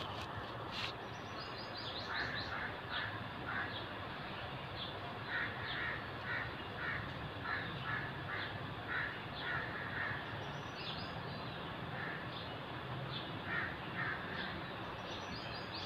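Birds calling in the trees: runs of short, repeated calls, about two a second, with a few higher chirps now and then, over a steady low background hum.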